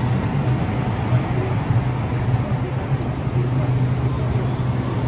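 Express Rakyat train's diesel locomotive running with a steady low hum.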